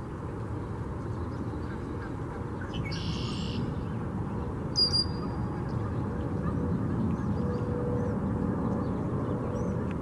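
Wild birds calling over a steady low background rumble: a harsh, rasping call about three seconds in, then a short, sharp high chirp near five seconds, the loudest sound, with faint small chirps after it.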